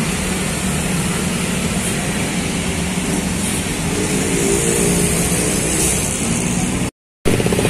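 Steady traffic on a busy road, motorcycles and cars running past, with a large coach bus's diesel engine coming in and growing slightly louder from about halfway as the bus draws close. The sound drops out completely for a moment near the end.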